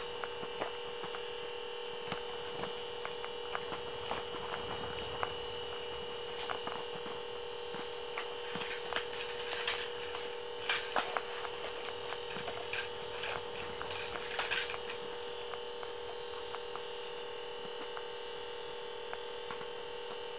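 A steady electronic hum made of several fixed tones, with scattered clicks and rustles of hands handling fishing line and tackle. The clicks are thickest about halfway through.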